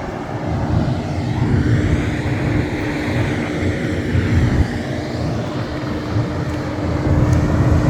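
Steady mechanical drone holding one pitch, over a low, uneven rumble.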